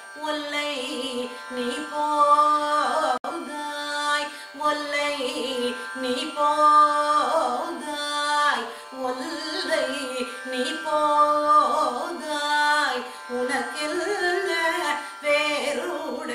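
A woman singing a Tamil devotional hymn in Carnatic style, in phrases of a second or two with gliding, ornamented notes.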